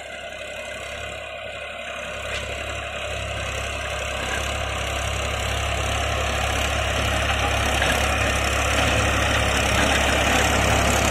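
New Holland 3600-2 tractor's 50 HP diesel engine running steadily under load while its rear-mounted rotavator churns the soil, growing steadily louder as the tractor comes closer.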